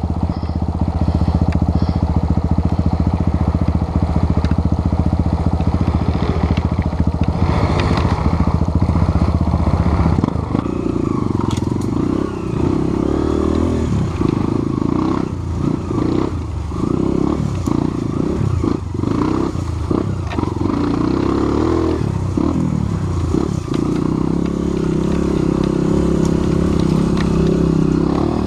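Off-road motorcycle engine running on a trail, steady for about the first ten seconds, then revving up and down with throttle changes, with some clattering.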